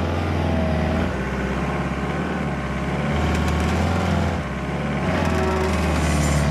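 Toyota Hilux pickup's engine running as the ute drives, its note stepping up and down a few times.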